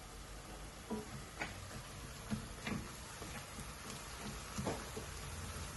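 Scattered light clicks and knocks from a cooking pot and utensils, a few in each second or two, over a faint steady background noise.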